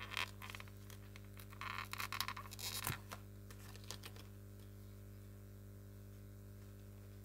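Hands working paper and lace on a journal page: brief scratching and rustling with small clicks in the first three seconds, then only a faint steady hum.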